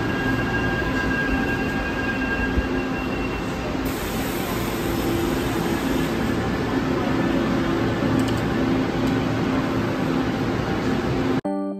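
Taiwan Railway Tze-Chiang express train moving slowly alongside the platform: steady rumble of the cars rolling on the rails, with a high whine in the first few seconds that fades away. End-card piano music cuts in right at the end.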